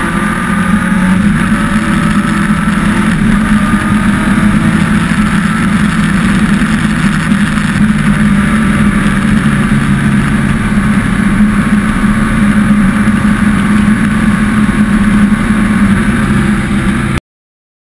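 A 2002 BMW K1200RS's inline four-cylinder engine running at road speed through its modified stock muffler, heard from the rider's seat over steady wind noise. The sound cuts off abruptly near the end.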